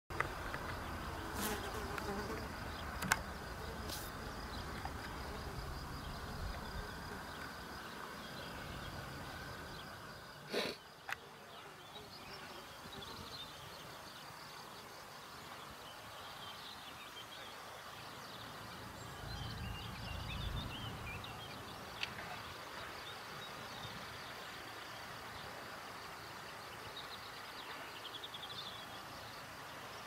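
Faint outdoor ambience with an insect buzzing, a few sharp clicks in the first eleven seconds and small high chirps later; the siren is not sounding.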